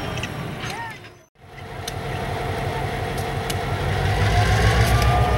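Diesel locomotive engine running as a slow freight approaches, its low throb growing steadily louder. A brief dropout comes about a second in.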